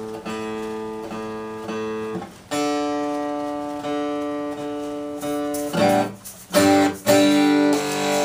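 Newly strung acoustic guitar strumming chords and letting them ring: a few short chords, one long held chord in the middle, then quicker strums near the end.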